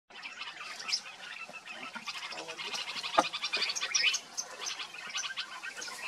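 A flock of Indian silverbills twittering with many overlapping short, high chirps. A single sharp click sounds about three seconds in.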